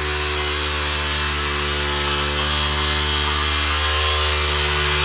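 Mortar plastering machinery running steadily at constant speed: an even engine hum with a hiss over it.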